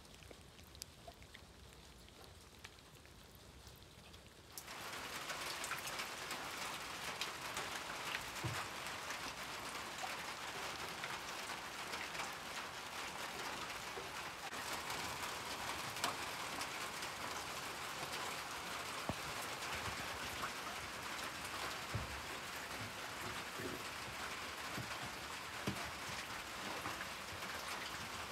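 Rain drumming steadily on a cabin's tin roof, with scattered single drops ticking on the metal. It starts abruptly about four and a half seconds in, after a few seconds of low room tone.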